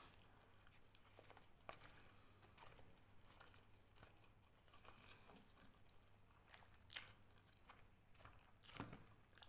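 Faint chewing and eating mouth sounds close to the microphone, with a few soft clicks, the clearest about seven seconds in and near the end.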